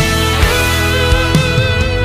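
Instrumental break of a pop ballad: a held melody line with vibrato over guitar and a steady drum beat.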